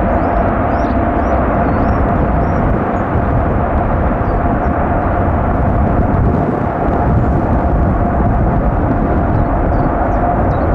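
Jet airliner engines running loud and steady: a broad rushing noise with a constant mid-pitched whine. Faint high chirps can be heard near the start and near the end.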